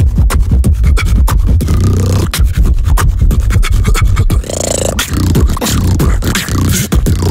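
Human beatboxing up close into a handheld recorder. A fast, dense run of sharp clicks and snares rides over a deep, continuous lip-roll buzz.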